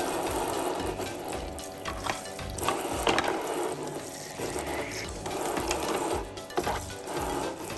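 Small battery-powered pump of a toy kitchen sink playset whirring steadily as it circulates water through the faucet, with a couple of sharp clicks from plastic dishes being handled.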